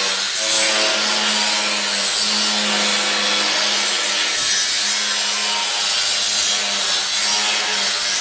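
A power tool grinding or cutting steel: a steady, continuous grinding noise over a low steady hum.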